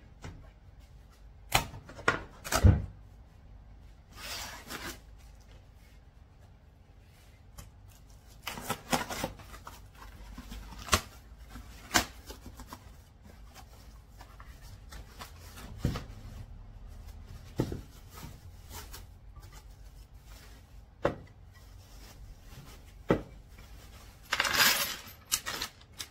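Furniture parts being handled on a wooden tabletop: scattered sharp knocks and clicks of wooden pieces and small metal hardware, with a few bursts of cardboard and plastic-wrap rustling, the longest near the end.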